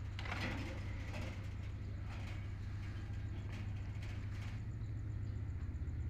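A steady low mechanical hum, like an engine running nearby, with a few brief soft rustles as a hill myna moves about its wire cage.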